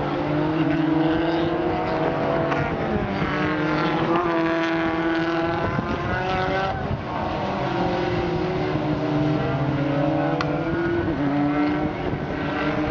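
Touring race cars running on a wet circuit, engine notes climbing and dropping back at each gear change several times, over the hiss of tyres throwing spray off the standing water.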